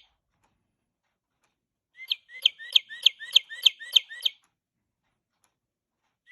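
Singing bird clock playing its recorded northern cardinal song: a phrase of about eight quick, evenly repeated slurred whistles, about three a second, starting about two seconds in. The next phrase begins right at the end.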